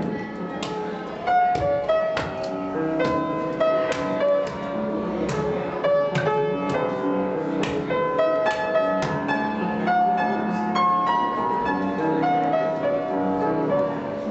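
Piano music with notes changing about every half-second, mixed with scattered sharp clicks and knocks.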